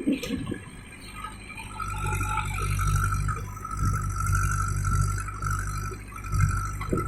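JCB backhoe loader's diesel engine running, its low hum swelling about two seconds in as it works, with a steady high whine over it and some rattling.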